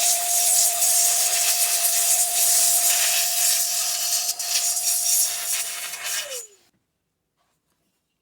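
Compressed air blasting through a laptop's cooling fan and heatsink: a loud, even hiss with a steady whine in it. The whine rises as the blast starts and falls away as it stops, about six and a half seconds in.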